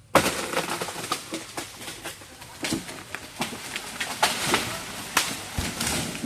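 Leafy branches rustling and crackling, with many irregular sharp snaps and a low thud about five and a half seconds in. It starts suddenly, and the chainsaw is not running.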